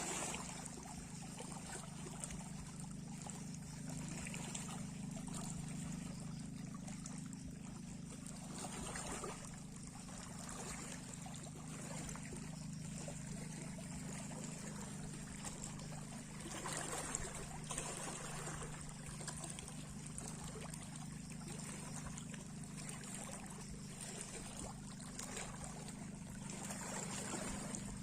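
Sea waves washing in and drawing back, swelling every eight or nine seconds, over a steady low hum.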